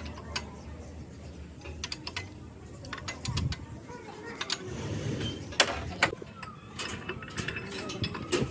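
Irregular sharp metallic clicks and knocks of hand work on engine parts, with a louder knock about five and a half seconds in.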